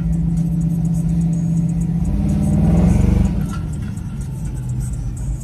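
Vehicle engine running steadily, with one brief rev about two seconds in that rises for about a second and then drops back.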